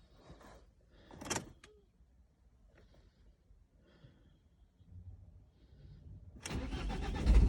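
Ford S-Max 1.8 TDCi diesel engine being cranked on the starter motor, an even pulsing whir that starts abruptly near the end, after a few faint clicks and knocks. The engine does not catch: a no-start fault.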